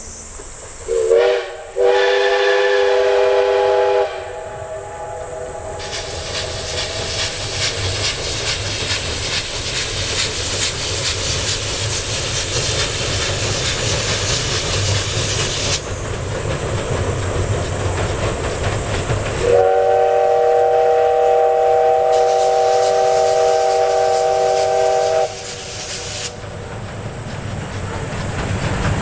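Steam locomotive whistle sounding as a chord of several tones: a short toot about a second in, then a blast of about two seconds, and later a long blast of about six seconds. Between the blasts the train runs with hissing steam and rail clatter.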